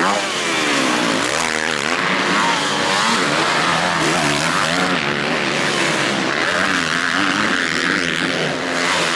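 Motocross bike engines revving hard, several at once, their pitch climbing and dropping again and again as the riders open and close the throttle and shift gears.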